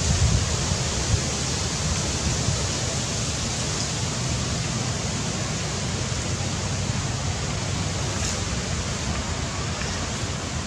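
Wind buffeting the microphone: a low, uneven rumble, strongest in the first second or so, over a steady outdoor hiss.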